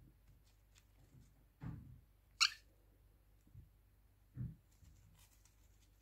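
One short, high chirp from a parrot about two and a half seconds in, with a few soft low thumps and rustles from the birds shifting on paper towel.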